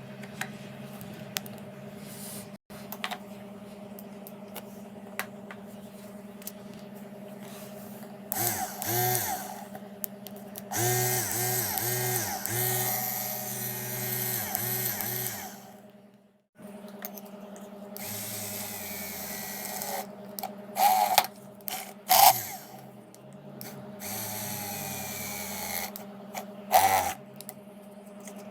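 Homemade drill built on a 775 12 V DC motor, run in several bursts over a steady hum. Its pitch dips and recovers repeatedly as the motor is loaded.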